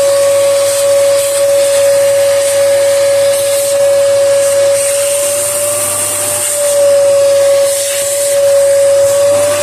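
1800 W vacuum cleaner running at full speed, sucking dust from a laptop's cooler and motherboard: a loud, steady high motor whine over rushing air, dipping slightly in pitch about six and a half seconds in.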